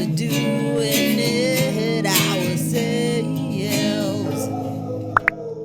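Outro music: strummed acoustic guitar with singing, fading out near the end. Two short high beeps sound as it fades.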